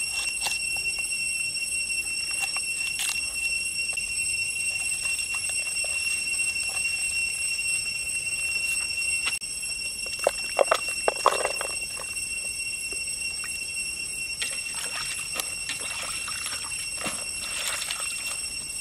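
A knife chopping herbs on a wooden board, a few sharp taps in the first seconds, then chopped herbs and leaves dropped into a pan of water around a whole king crab, with a cluster of loud knocks and splashes about ten seconds in. A steady, high-pitched drone of forest insects runs underneath.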